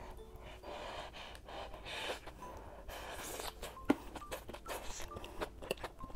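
Close-up eating sounds: a mouthful of udon noodles being slurped and chewed, with breathing through the nose. Light clicks of chopsticks throughout, and one sharp click about four seconds in.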